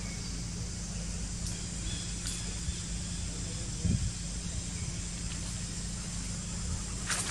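Outdoor ambience: a steady low rumble with a few faint, short high chirps, a thump about four seconds in and a sharp click near the end.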